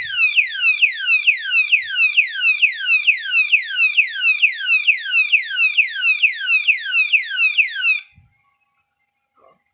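Motorcycle alarm lock's siren sounding, a loud electronic chirp falling in pitch and repeating about three times a second, set off by tampering with the lock. It cuts off abruptly about eight seconds in, as the alarm times out by itself after roughly nine seconds of sounding.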